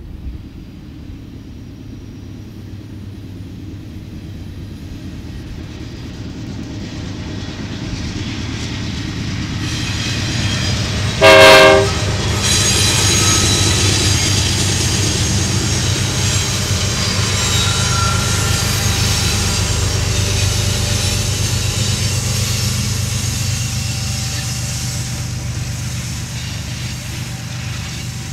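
Three GE diesel locomotives, led by a GE AC44CW, approaching and passing, their engines growing steadily louder. One short horn blast about eleven seconds in is the loudest sound. After it, empty steel hopper cars roll by with wheel noise and thin high-pitched wheel squeals.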